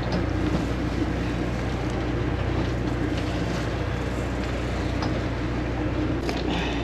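Sport-fishing boat's engine running steadily, a low hum under a haze of wind and water noise, with a few faint clicks about six seconds in.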